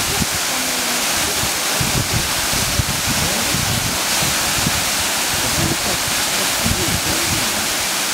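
Waterfall rushing in a steady, loud hiss, with uneven low buffeting of wind on the microphone.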